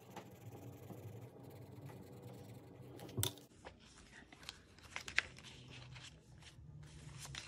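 Paper money and binder pages rustling and crinkling as they are handled, with a few sharp clicks, the loudest about three seconds in and another around five seconds.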